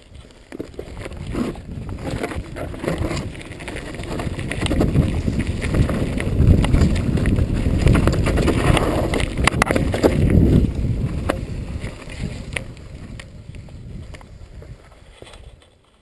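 Hardtail mountain bike descending a rough dirt trail: wind rushing over the camera microphone, tyre noise and the bike clattering over bumps, building up as speed rises and fading away near the end.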